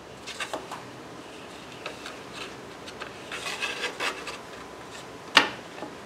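Wooden whirligig blades being slid and rubbed over a plywood board, making short scraping strokes, with one sharp wooden knock about five seconds in.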